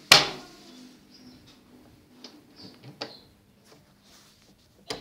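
An interior door being handled and opened: a loud clack, a few light clicks of the handle and latch, then another loud clack near the end.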